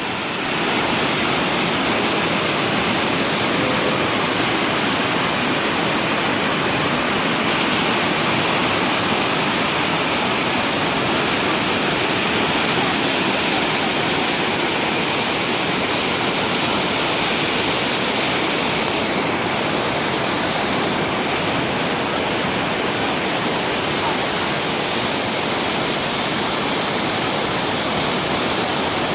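Rio Cobre river in flood, its swollen water rushing in a loud, steady roar.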